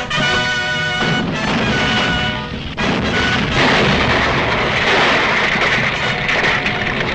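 Orchestral film score, with held pitched chords for the first few seconds, then a loud, noisy crashing, booming sound effect that takes over from about three and a half seconds in.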